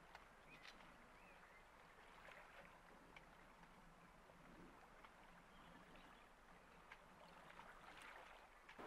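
Near silence: faint water lapping and trickling, with scattered small ticks.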